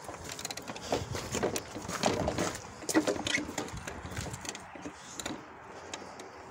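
Footsteps on a gravel lot, with irregular clicks and knocks of carried parts being handled; the clatter dies down after about five seconds.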